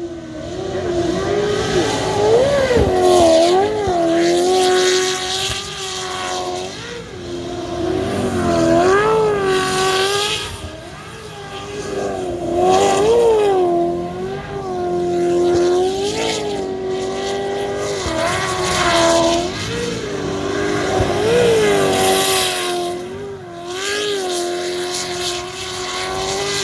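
Unlimited-class jet sprint boat's engine running hard at high revs, its pitch holding steady and then dipping and rising again many times as the boat works through the course.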